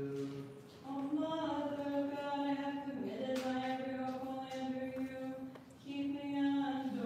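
Unaccompanied Orthodox liturgical chant: voices sing long held notes in slow phrases, with two short breaks, one about half a second in and one near the end.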